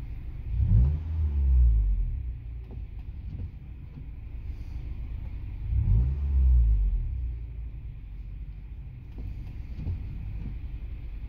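1996 Acura Integra GSR's 1.8-litre VTEC four-cylinder idling, heard inside the car's cabin. It is revved twice with the car standing still, about five seconds apart, and each rev rises and then falls back to idle.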